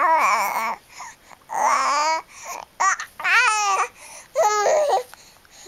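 A young baby babbling and cooing: about four drawn-out vocal sounds with wavering pitch, separated by short pauses.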